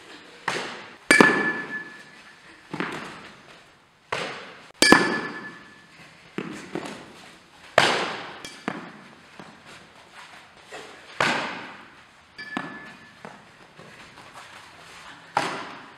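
Softball fielding drill: sharp echoing impacts every few seconds of softballs being struck and caught in leather gloves. The two loudest, about one and five seconds in, ring with a short metallic ping like a bat hitting the ball.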